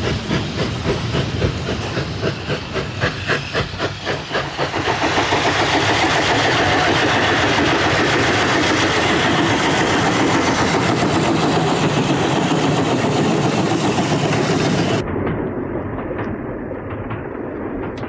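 Steam locomotive chuffing in a quick even beat, then a loud steady rush of steam and running noise for about ten seconds. About fifteen seconds in it cuts suddenly to a quieter, duller train rumble.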